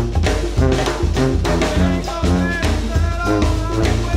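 Jazz music with brass and drum kit, pitched melody notes over a steady bass and a regular drum beat.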